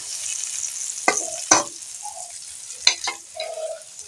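Oil sizzling in a metal kadai as a metal spatula scrapes and clinks against the pan several times, lifting out a well-fried fish head. The sizzle thins out toward the end.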